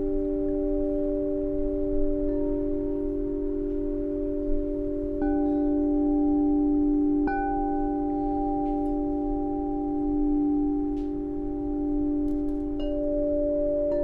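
Slow ringing chime tones: a new note is struck every two to five seconds and each one keeps ringing under the next, so the notes overlap into a sustained chord.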